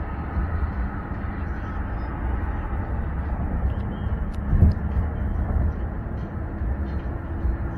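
Steady road and engine rumble heard from inside a car driving at highway speed, with a brief louder swell about four and a half seconds in.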